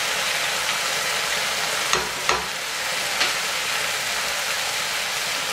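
Chopped vegetables and chili sauce sizzling steadily in a hot iron wok over a gas flame turned to full. Three short, sharp clicks come about two to three seconds in.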